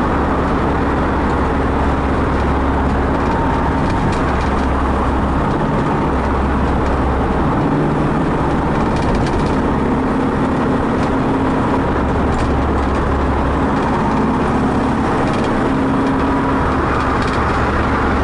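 Steady road and wind noise from a vehicle driving at highway speed, with a low engine hum whose pitch shifts slightly now and then.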